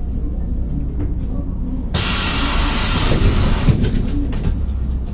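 Sudden burst of compressed-air hiss from the MAZ-105 bus's pneumatic system, starting about two seconds in and dying away under two seconds later. A steady low diesel engine rumble runs underneath.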